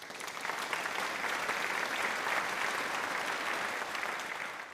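Applause: many hands clapping in a dense, even patter that starts abruptly and cuts off suddenly at the end.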